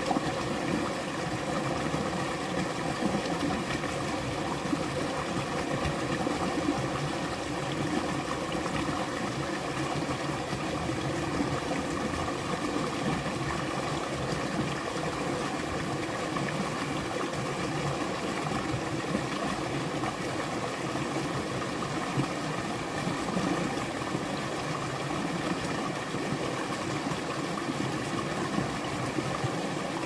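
Small stream spilling over rocks into a pool: a steady, unbroken rush of running water.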